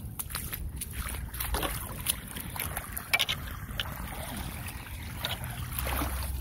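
Floodwater swirling and running down a storm drain that has just been cleared of a clog of leaves, with scattered small splashes. A low wind rumble sits on the microphone underneath.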